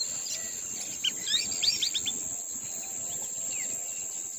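Several birds chirping and calling in quick, short whistled notes, over a steady high-pitched whine.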